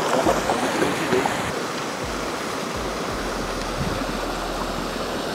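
Steady rushing of water, with a faint voice in the first second or so.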